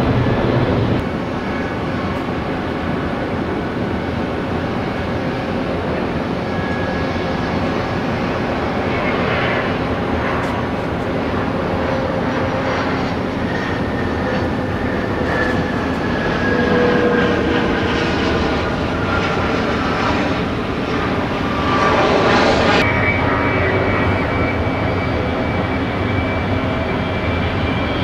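Jet airliner engines running at high power: a steady roar with an engine whine that glides slowly down in pitch. The sound changes abruptly once near the end.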